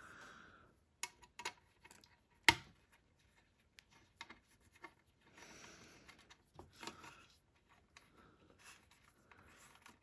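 Faint clicks and scraping of a hand tool working the small bolts that hold an Ender 3 Pro's mainboard in place, with one sharp metallic click about two and a half seconds in.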